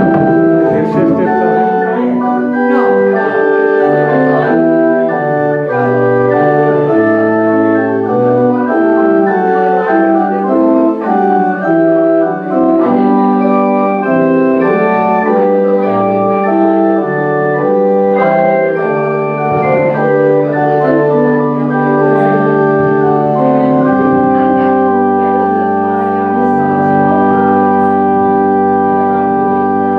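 Organ playing the postlude, a moving line of sustained chords that settles into one long held chord about three-quarters of the way through.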